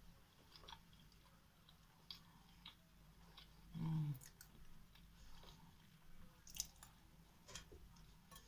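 Close-up eating sounds: soft chewing and small wet mouth clicks as spoonfuls of a crumbly homemade cookie cake are eaten. A short hum of the voice comes about four seconds in.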